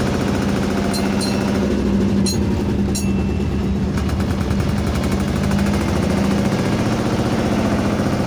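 Fishing boat's engine running steadily with a constant low hum and a fast knocking rhythm, with a few light clicks in the first three seconds.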